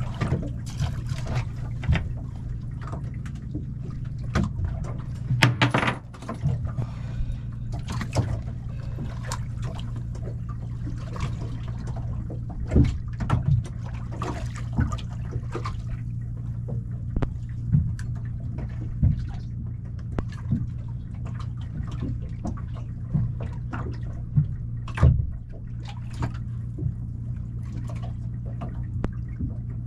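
Sea water lapping and slapping irregularly against the hull of a small drifting fishing boat, with a few louder splashes, over a steady low hum.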